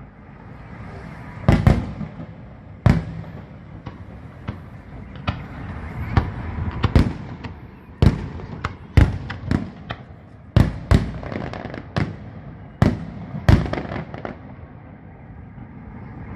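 Fireworks salute: a run of about twenty sharp shell bursts at irregular intervals, some close together in pairs and triplets, each with a short rumbling tail.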